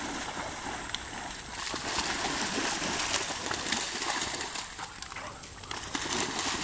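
A Doberman and Labrador retrievers running and splashing through shallow pond water, with a steady irregular patter of splashes.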